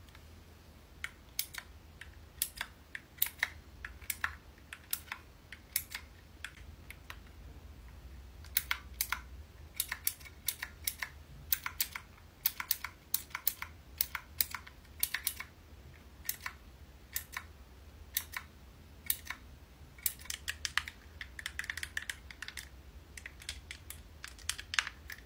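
Clicky mechanical keys on a Divoom Ditoo pixel-art speaker being pressed, in single clicks and quick irregular runs of several.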